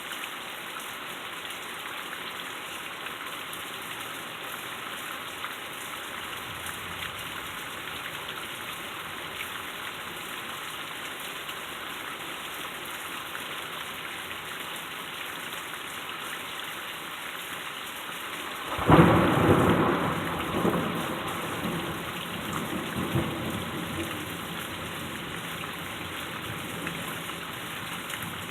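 Steady rain hissing, then about two-thirds of the way in a loud clap of thunder that rumbles and dies away over several seconds, with a smaller roll a few seconds later.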